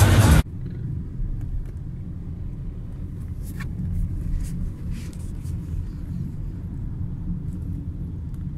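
Loud electronic dance music cuts off about half a second in. It gives way to the steady low rumble of a vehicle in motion, heard from on board, with a few faint ticks.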